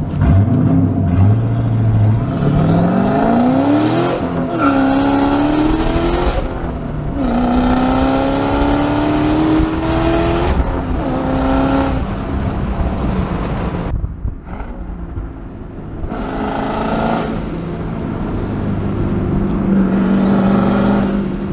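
Turbocharged Ford Mustang GT's 4.6-litre three-valve V8 accelerating through the gears: the engine pitch climbs in each gear and drops at each quick upshift, about four pulls in a row. About two-thirds of the way through it goes quieter as the throttle eases off, then it pulls again and settles into a steady drone near the end.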